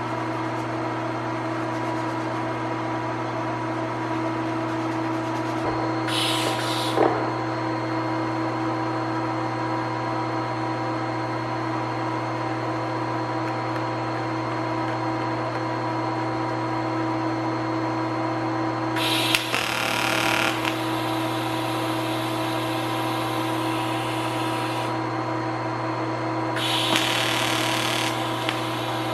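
TIG welding tacks: three short bursts of arc hiss and crackle, about six, nineteen and twenty-seven seconds in, the middle one the longest, over a steady machine hum.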